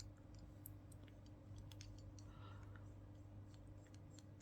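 Near silence with faint, scattered clicks and light taps of small hard objects being handled, over a steady low hum.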